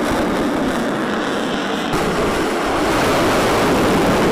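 Rocket motor of a missile fired from a ground launcher: a loud, steady rushing roar with no distinct tones, shifting slightly about two seconds in.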